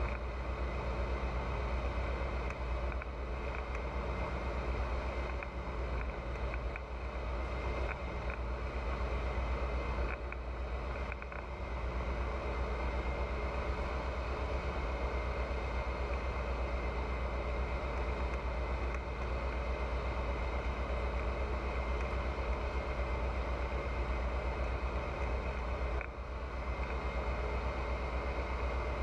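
Pipistrel Virus light aircraft's four-cylinder Rotax 912 engine and propeller droning steadily, with a strong low hum and a hiss of airflow; the level dips briefly twice, about eleven and twenty-six seconds in.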